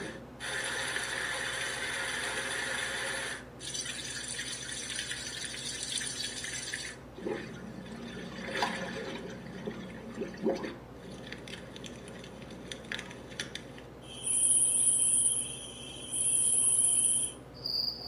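Digital alarm clock's built-in sound machine playing a series of its white-noise sounds, switching every few seconds. First comes a steady hiss of white noise, restarted once after a short break. Then a water sound with scattered drips, and then two long high, steady tones.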